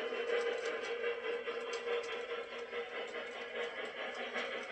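Lionel Lionmaster Southern Pacific cab-forward model locomotive running with its ore cars: a steady rolling rumble of wheels on the layout track mixed with the locomotive's electronic steam chuffing, which switches quickly between simple and compound.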